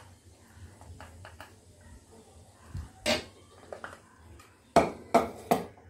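Soft cooked chana dal poured from a steel pot into a stainless steel mesh strainer, with light scraping clicks, then the metal vessels clanking: once about three seconds in and three times in quick succession near the end.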